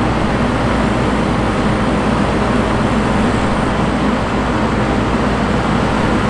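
Pelonis in-wall air conditioner running on medium fan with cooling on: a steady rush of fan air over a constant low hum.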